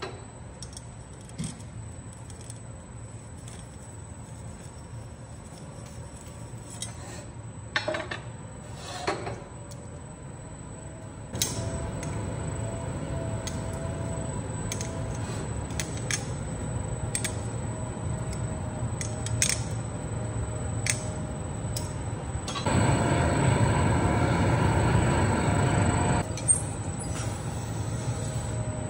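Hot-glass studio at work: steel glassblowing tools clinking sharply against the glass and the bench now and then, over a steady gas-burner roar that steps up about a third of the way in and grows louder for a few seconds near the end.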